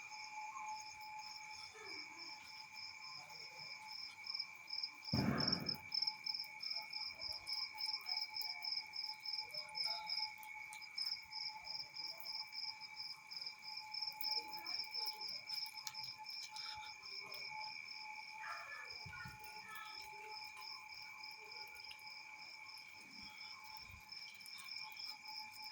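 Night insects calling: crickets chirping in a steady pulse of about four chirps a second, over several continuous high insect drones. A single dull thump about five seconds in.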